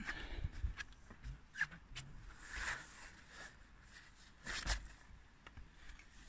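Faint scuffs, scrapes and rustles of a person climbing over a rough stone roof parapet, with scattered small knocks and two louder scuffs about two and a half and four and a half seconds in.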